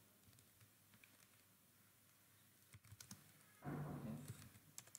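Faint keystrokes on a computer keyboard as a few characters are typed, scattered and irregular. Near the end a man's voice gives a brief low murmur, the loudest sound here.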